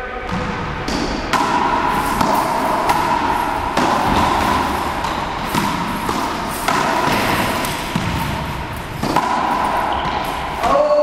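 Racquetball rally in an enclosed court: the ball smacking racquets, walls and floor in quick, irregular hits. A steady high tone holds for several seconds at a time over the hits.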